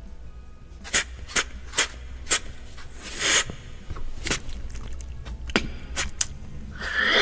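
A series of short sharp clicks and knocks at uneven intervals, with a longer scraping sound about three seconds in and a brief pitch glide near the end.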